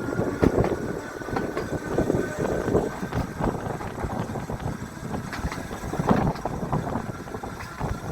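Electric tram running along the track, the wheels rumbling with irregular knocks and clicks from the rails.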